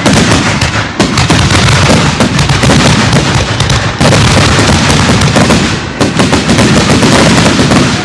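Fireworks grand finale: a dense, continuous barrage of booming shell bursts and rapid crackling reports, with fresh loud volleys about one, four and six seconds in.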